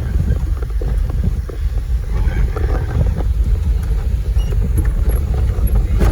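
Vehicle ride: a steady low road rumble with frequent short knocks and rattles from jolting along, with wind buffeting the microphone.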